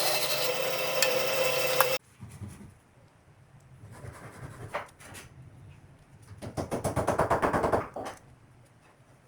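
A power tool working wood runs loudly, then cuts off abruptly about two seconds in. A few light knocks and clatter follow. Later comes a loud, rapid rattle of about a dozen knocks a second, lasting about a second and a half.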